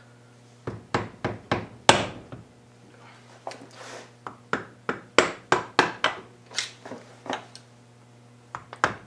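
Sharp knocks and taps of a hand tool against a transmission's front bearing retainer as it is pried and tapped loose from the case. The strikes come irregularly, then about three a second in the middle.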